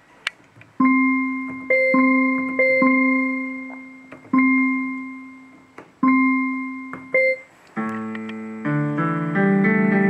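Electronic keyboard notes from a programmable pushbutton demo box: a single note of the same pitch sounded again and again at uneven intervals, then near the end a full multi-note tune with chords starts playing on its own.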